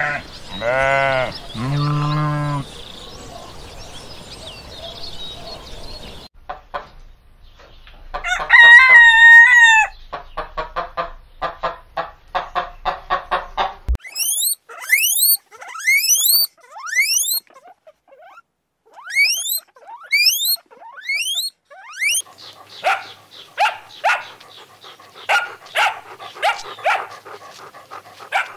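A string of farm and animal calls: two sheep bleats at the start, then a rooster crowing loudly with hens clucking after it, followed by a run of high, quickly rising chirps and then a series of short, sharp calls near the end.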